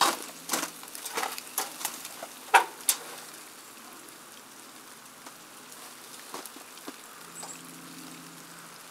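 Handling and tilting open the sheet-metal hood of a 1967 Sears Suburban 10 garden tractor: a quick run of sharp knocks and clatters over the first three seconds, the loudest about two and a half seconds in. After that, only faint scattered dripping from melting ice.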